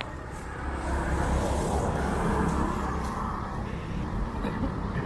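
Road traffic: a steady low engine rumble, with a vehicle going by that swells and fades over the first few seconds.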